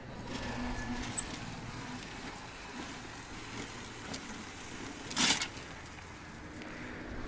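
Electric wheelchair motors of a remote-controlled cart running as it drives off, with a short, loud burst of noise about five seconds in.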